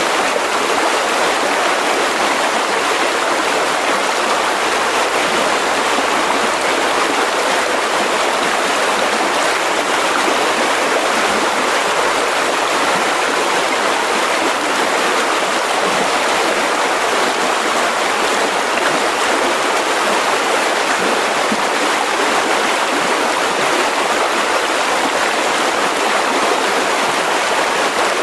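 Mountain river rushing over rocks: a steady, even rush of flowing water.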